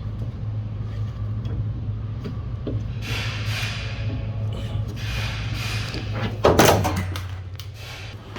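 Scraping and rustling as a door release cable is fed through the inside of a van's sliding door, then one loud thunk about six and a half seconds in.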